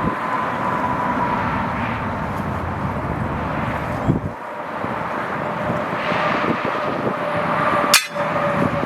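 A steady engine-like drone with a faint whine, broken by a sharp knock about four seconds in and another near the end.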